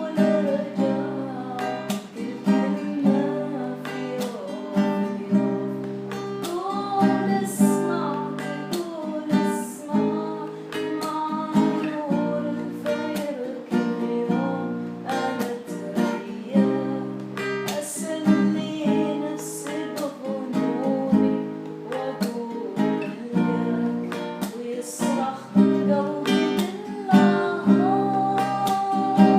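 Acoustic guitar strummed in a steady rhythm under a voice singing an Arabic song.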